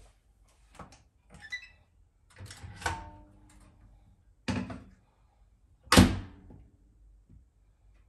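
Built-in Siemens microwave oven being opened, loaded and shut: a series of knocks and clunks, with a short ringing clink about three seconds in and the loudest thunk about six seconds in.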